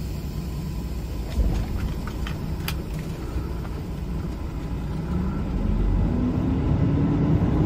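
A semi-truck's diesel engine runs at idle, heard inside the cab, with a few sharp clicks from the seatbelt being pulled across and buckled. About five seconds in, the engine note rises steadily as the truck pulls forward at a crawl.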